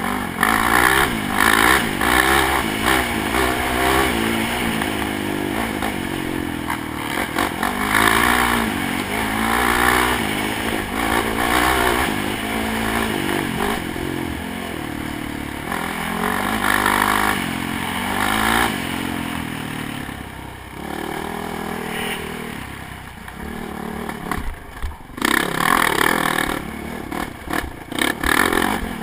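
ATV engine running hard at racing pace, its revs climbing and dropping again and again as the rider accelerates, shifts and backs off through the trail, with the machine rattling and clattering over ruts and bumps. Louder rushing bursts come near the end as it climbs a rough dirt hill.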